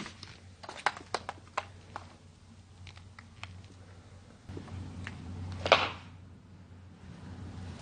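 Several sharp clicks and knocks in the first two seconds, typical of footsteps and handling in a cluttered room. A little before six seconds comes a louder, brief rasping noise, over a low steady hum.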